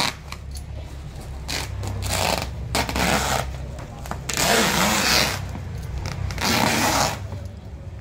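Woven plastic sack being cut with scissors and pulled open, in several bursts of rustling and scraping, the loudest about halfway through. A low steady hum runs underneath.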